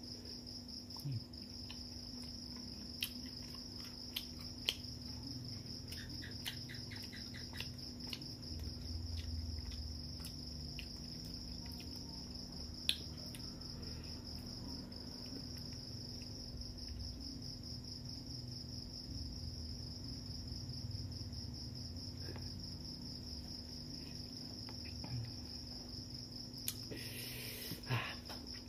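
Crickets trilling steadily and high-pitched throughout, over sparse clicks and smacks of hand-eating from a plate: fingers picking rice and fish, and chewing.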